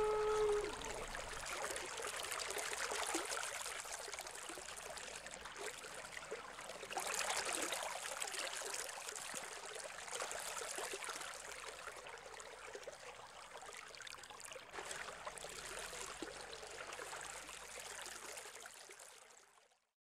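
Running water of a stream, an even rushing hiss that swells about seven seconds in and then fades out shortly before the end. The last held note of the music dies away within the first second.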